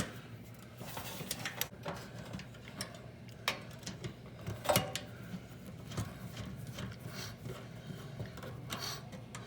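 Scattered light clicks and taps of hand tools, screws and wire being handled at an electric range's terminal block while a cord wire is fitted, over a low steady hum.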